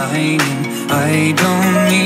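Recorded song playing: a steady beat with a sharp hit about once a second, over a held bass and a wavering melodic line.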